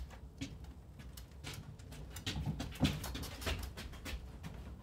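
Irregular knocks and clatter of a Six Chuter P3 Lite powered-parachute cart's frame and wheels as it is pulled up into an enclosed plywood trailer, over a low steady rumble; the loudest knocks come a little before and after the middle.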